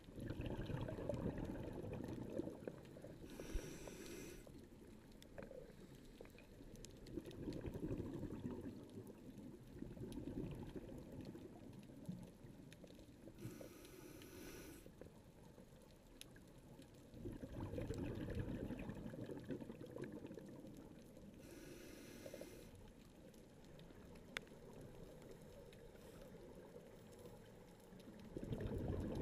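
Underwater scuba breathing through a regulator: short hisses of inhalation at roughly 9-second intervals, with the low, rushing bubble noise of exhalation swelling and fading between them.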